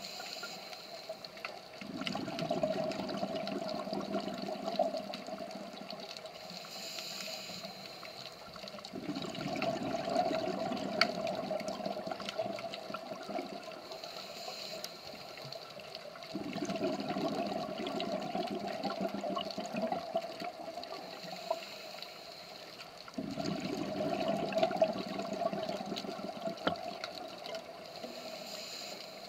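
Scuba diver breathing through a regulator underwater: a bubbly gush of exhaled air about every seven seconds, each lasting around four seconds, with a higher hiss of inhalation in between. Faint sharp clicks are scattered throughout.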